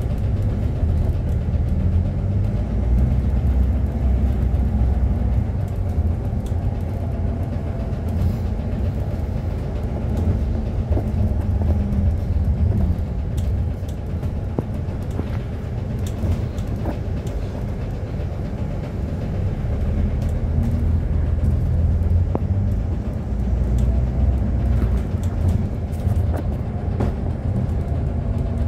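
Interior sound of an Alexander Dennis Enviro 400H hybrid double-decker bus on the move, heard from the upper deck: a steady low rumble that swells and eases with the driving, with scattered small rattles and clicks from the body.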